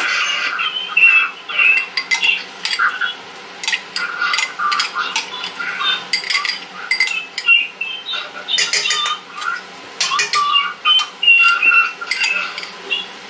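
Metal spoon clinking and scraping against a small drinking glass, many short ringing clinks at irregular intervals.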